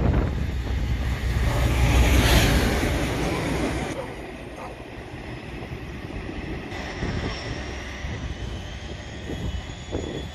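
Class 56 diesel locomotive passing through, its deep engine drone and wheel noise loudest about two seconds in, then falling away quickly and fading as it recedes.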